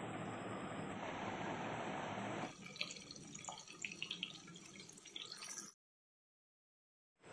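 A steady hiss, then from about two and a half seconds in, faint scattered crackles and pops of fish pieces frying in oil in a wok; the sound cuts off shortly before the end.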